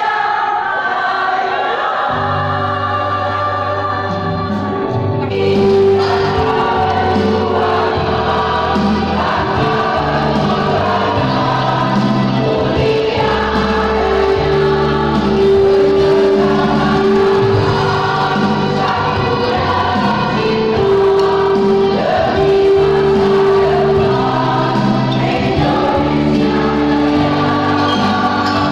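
Women's choir singing in parts, with steady held low notes underneath; the sound grows brighter about five seconds in.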